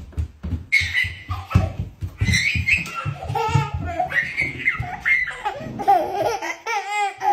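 A toddler laughing and squealing in short excited bursts, starting about a second in, over quick low thumps of footsteps on a wooden floor.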